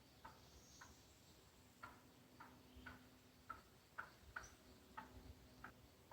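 Wild turkey hen clucking faintly in the distance, a string of about a dozen short, sharp clucks coming roughly every half second to second. It is the hen calling to gather her hidden poults.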